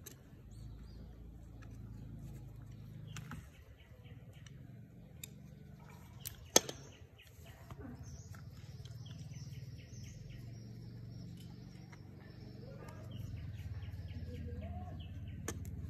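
Small metal clicks, taps and scrapes of angle grinder parts and a screwdriver as the grinder is put back together, with one sharp click about six and a half seconds in as the loudest sound. Birds chirp faintly in the background over a low steady hum.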